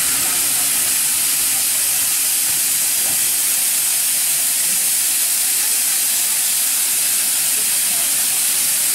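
Steady hiss of steam escaping low at the front of J-class steam locomotive J549, even throughout with no exhaust beats.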